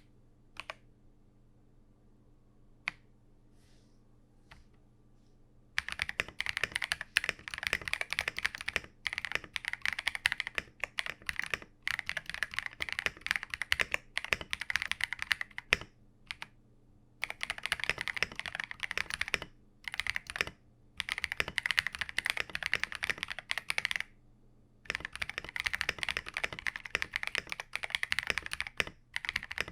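KiiBOOM Phantom 81 V2 gasket-mounted mechanical keyboard, with transparent keycaps and transparent switches, being typed on. A few single keystrokes come first. From about six seconds in there is fast continuous typing in runs separated by brief pauses.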